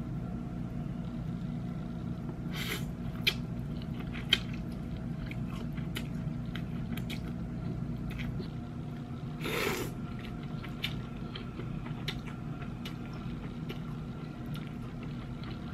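Close-up eating sounds of cold naengmyeon noodles: chewing, small clicks of chopsticks and mouth, and a couple of slurps, about three and ten seconds in. A steady low hum runs underneath.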